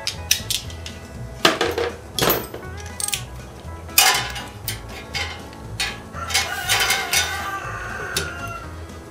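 Irregular metallic clinks and knocks of a socket wrench and extension being fitted to and worked on the electric starter of a single-cylinder Briggs & Stratton mower engine.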